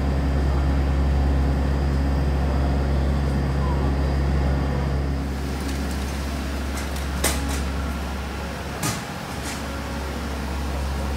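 Steady low engine drone heard from inside a moving road vehicle, which stops about five seconds in. It is followed by a few sharp knocks and clatters at a terminal entrance.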